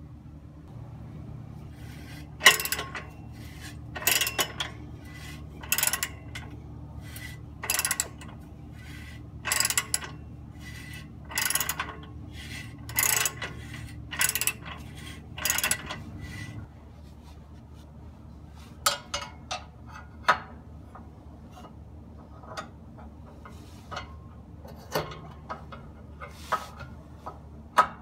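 Socket ratchet wrench clicking in repeated strokes, about one every second and a half, loosening the bolts at a car's exhaust pipe flange to remove the catalytic converter section. After about sixteen seconds the strokes stop and only a few scattered sharp clicks remain, while a low steady hum underneath cuts out.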